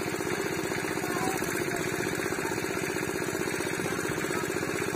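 A small engine running steadily with a fast, even beat.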